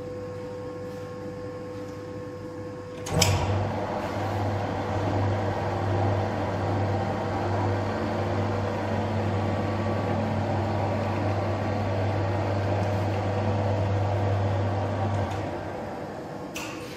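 Electric dough mixer in a bakery starting with a click about three seconds in, then running with a steady low hum until it fades out near the end.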